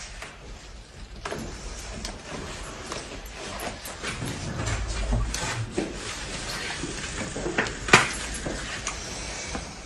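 Rustling of clothing and handling knocks as a man's shirt and trousers are handled in a body search, with a sharp click about eight seconds in.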